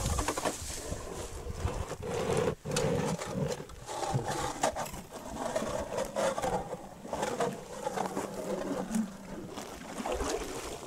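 Ice auger grinding its way down through thick lake ice, a rough grinding that swells and fades irregularly as the blades cut.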